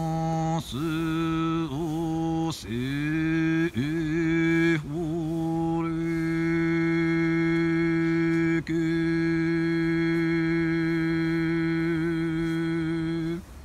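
A man chanting long, held notes on one steady pitch: a few short phrases, each sliding up into the note and broken by a quick breath, then one long note held for about seven seconds that stops abruptly near the end.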